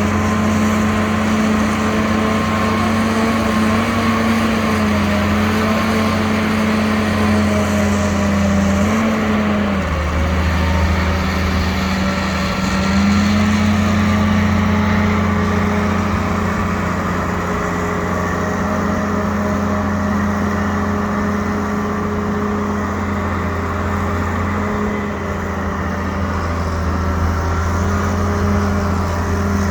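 Excavator's diesel engine running steadily under hydraulic work, its pitch dipping briefly about nine seconds in and rising again a few seconds later as the load changes.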